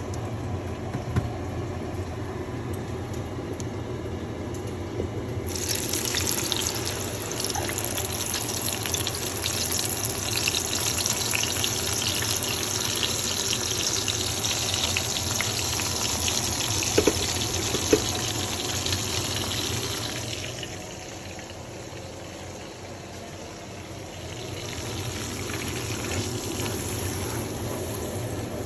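Water running from a kitchen tap. It starts about five seconds in, eases off about twenty seconds in and picks up again a few seconds later, with a couple of sharp knocks in the middle.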